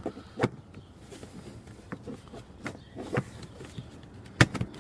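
Scattered light plastic clicks and taps as a 4Runner's dash speaker cover is handled and pressed back into place, with a sharper snap near the end.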